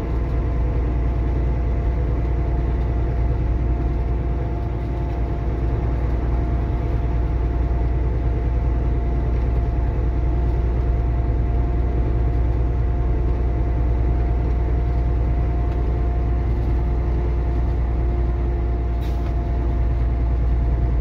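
Semi truck's diesel engine and tyre noise droning steadily inside the cab while cruising, with a low rumble and a constant hum.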